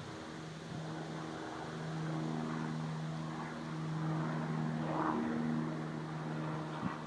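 Small propeller aircraft flying high overhead: a steady, distant engine drone with a few held tones, growing slightly louder in the middle and easing off near the end.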